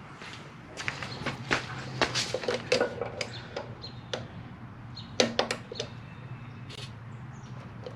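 Pliers and a mini bike's roller chain clicking and clinking as the master link is worked on: clusters of short, sharp metallic clicks about a second in and again about five seconds in, over a steady low hum.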